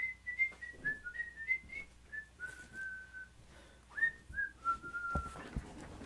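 A man whistling a short tune: a run of quick notes, then a few longer held ones, stopping about five and a half seconds in. A couple of thumps come near the end.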